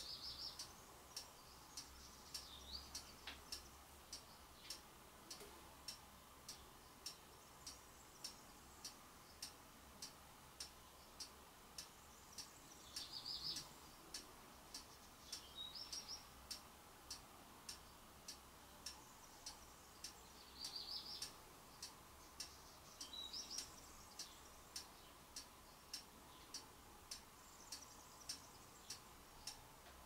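Faint, steady ticking, a little more than once a second, with a handful of short, high bird chirps scattered through.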